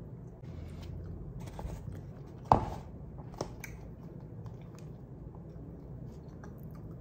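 A person eating soup: sips and chewing, with spoon clicks against a plastic cup, the sharpest one about two and a half seconds in, over a low steady hum.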